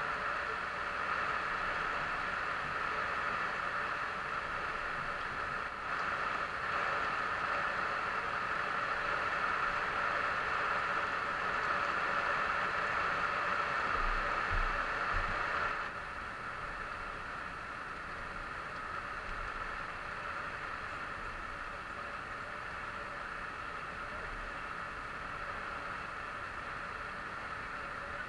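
Steady hiss of heavy rain and water rushing past a moving wooden outrigger boat, a little louder for the first sixteen seconds or so and then dropping slightly.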